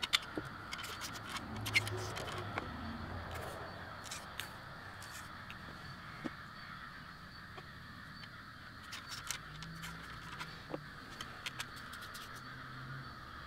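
Scattered small clicks, taps and scrapes of a 20-gauge percussion side-by-side muzzle-loading shotgun being loaded in a hurry: ramrod, wads, shot and cap tins handled on a wooden table. The clicks cluster at the start and again about nine seconds in.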